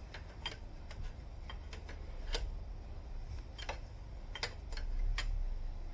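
Irregular sharp metallic clicks from a hand tool as the reverse light switch is tightened into the gearbox, over a low rumble.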